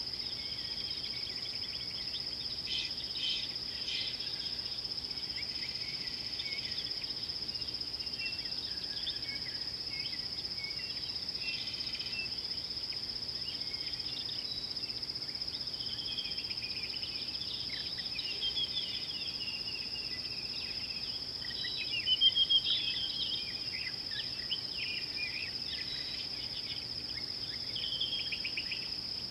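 A steady high-pitched insect drone, with many short bird chirps and calls over it; a louder run of bird calls comes about 22 seconds in.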